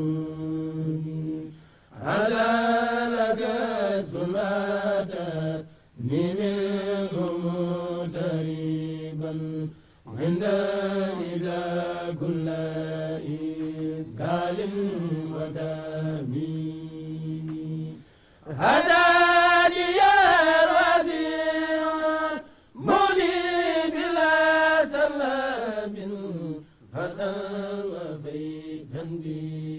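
Men chanting an unaccompanied Wolof devotional song in praise of Serigne Fallou Mbacké, in phrases of a few seconds with short breaks between them. A louder, higher-pitched passage comes about two-thirds of the way through.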